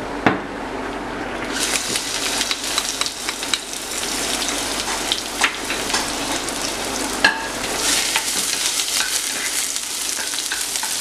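Chopped garlic sizzling and crackling in hot oil in a non-stick pan, the sizzle swelling about a second and a half in. A wooden spatula stirs it, with a sharp knock near the start and a couple more knocks against the pan later.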